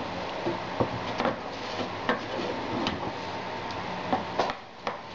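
Wooden spatula scraping and knocking against a nonstick frying pan as beef is stirred in a simmering red-wine gravy. The knocks are sharp and irregular, coming about once or twice a second over a steady hiss.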